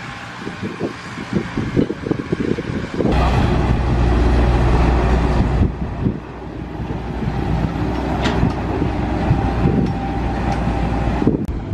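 A heavy engine running, with a steady low rumble. It gets louder about three seconds in for a few seconds, then eases back.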